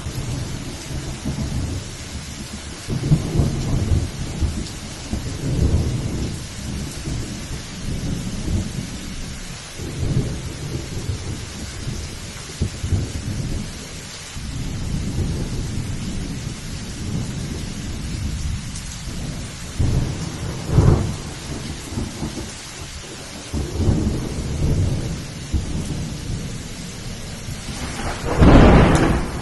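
Thunderstorm: steady rain hissing, with rolling thunder rumbling low in repeated waves every few seconds and a louder peal near the end.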